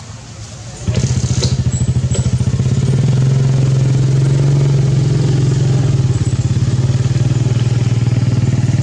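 A small engine comes on about a second in, loud, and keeps running steadily with a rapid low pulse.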